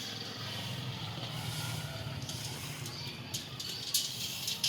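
A vehicle engine running with a steady low hum. Near the end come a few sharp knocks.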